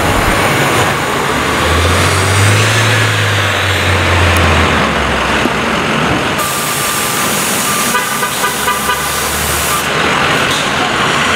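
City transit buses running in street traffic. A low engine drone runs for about three seconds near the start, and partway through comes a loud hissing rush with a steady horn-like tone over it.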